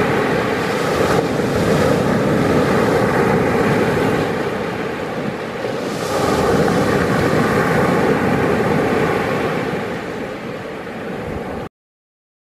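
Sea waves breaking on a pebble beach: a steady rush of surf that swells and eases as the waves come in, then cuts off abruptly near the end.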